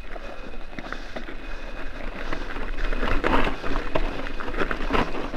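Mountain bike rolling fast down a loose gravel track: tyres crunching over stones and the bike rattling, with a steady low rumble of wind on the microphone. The clatter grows louder and busier about three seconds in.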